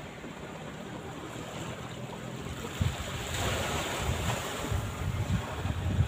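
Small waves washing up a sandy beach, the surf swelling about halfway through, with wind gusting on the microphone in low, irregular thumps.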